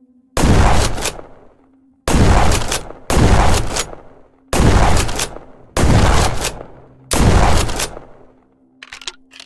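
Six blasts from a trench gun (pump-action combat shotgun), fired at uneven intervals of about one to one and a half seconds. Each is a sharp report with a short fading tail.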